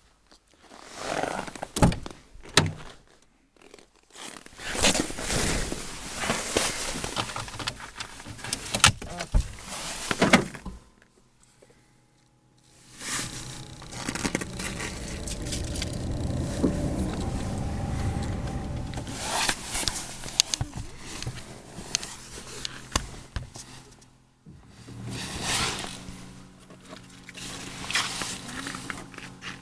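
Handling noises around and inside a frozen Renault Laguna II: scraping and rustling, with sharp knocks and thunks from the door and cabin. From about eleven seconds in there is a faint steady hum with the ignition switched on.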